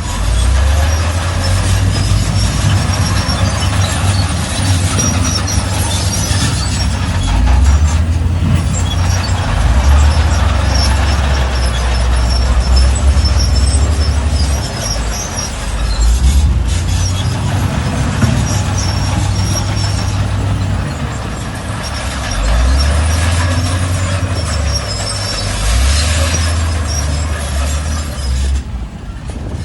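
Shantui bulldozer working: its diesel engine runs with a deep drone that swells and eases as the load changes every few seconds, with high squeaks from the machine over it.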